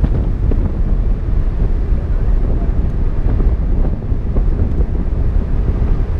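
Wind buffeting the microphone of a hood-mounted camera on a vehicle driving along a paved road, a loud, uneven low rumble over the vehicle's road noise.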